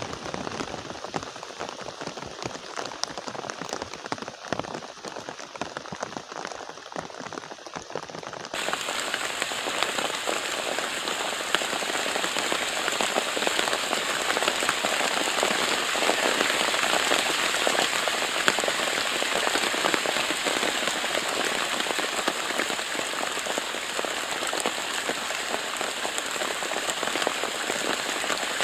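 Rain falling in a steady hiss of drops, which becomes abruptly louder and heavier about eight seconds in.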